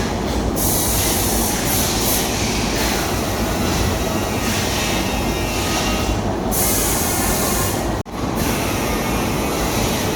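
Steady, loud mechanical rumble with hiss, briefly cut off about eight seconds in.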